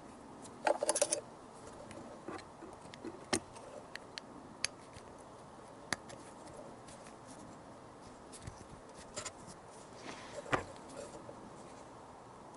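Small metallic clicks, taps and scraping of an Allen key and fingers working the screws of a motorcycle's carburettor-to-engine intake rubbers. A quick rattling run of clicks comes about a second in, single sharp ticks follow every second or two, and a second cluster comes about ten seconds in.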